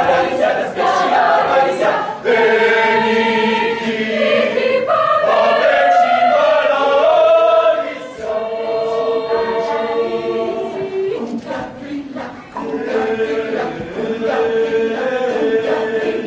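A large group of men and women singing together in chorus, holding long notes that change pitch every few seconds.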